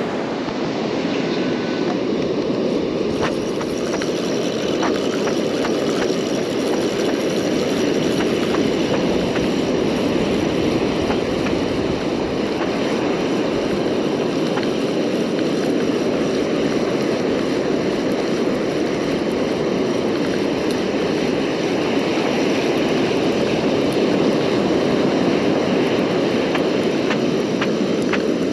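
Steady rush of ocean surf breaking and washing up the sand, with no change in level.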